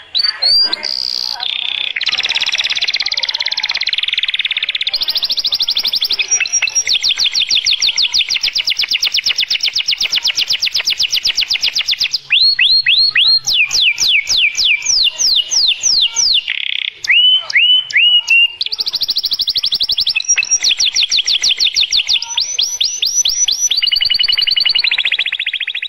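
Canary in full song: long rolling trills of rapid repeated notes that change phrase every few seconds, with a stretch of slower, falling sweeping notes about halfway through before the fast trills return.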